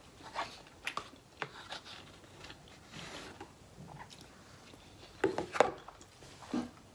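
Close-up chewing and mouth sounds of someone eating a Chipotle burrito bowl, with scattered small clicks and a louder cluster of smacks about five seconds in.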